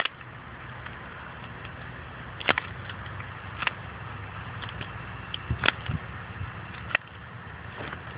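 Pruning tool snipping through small girdling roots at a tree's root collar: a handful of sharp snips a second or more apart, over a steady low hum.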